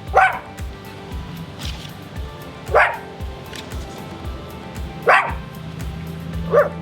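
A big dog barking, four loud single barks a couple of seconds apart; it is barking for attention. Background music with a steady beat plays underneath.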